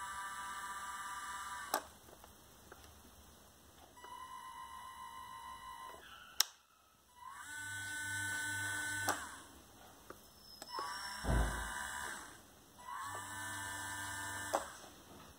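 Small 370-size geared DC motors of a tracked chassis's drive train whining in about five short runs, each rising in pitch as the motors spin up, holding for a second or two, then stopping. A few sharp clicks come between the runs.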